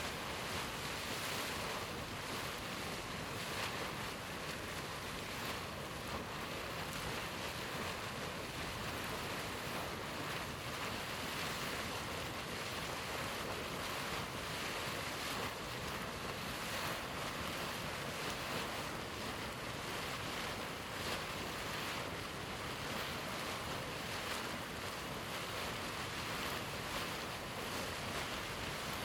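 Deildartunguhver hot spring: boiling water bubbling and churning in a steady, dense rush, with hissing steam.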